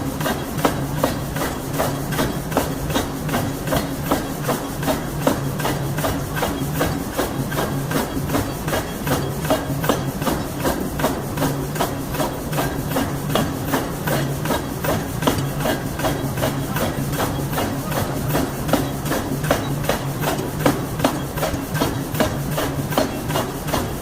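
Power hammer striking a hot steel bearing forging in a fast, even rhythm of blows, over the steady hum of the running machine.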